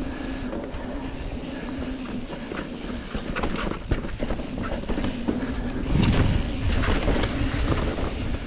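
Steel hardtail mountain bike riding fast along a dirt trail: the tyres roll with a steady hum while the chain and frame rattle and clatter over bumps and tree roots. It gets louder and rougher from about six seconds in.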